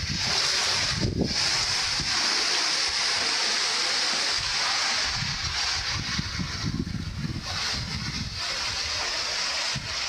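Strong storm wind rushing through tree foliage as a steady loud hiss, with gusts buffeting the microphone as low rumbles that come and go, heaviest in the second half.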